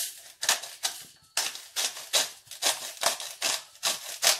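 Hand-twisted salt grinder crunching coarse sea salt and pink Himalayan salt crystals, in quick repeated grinding strokes, about three a second.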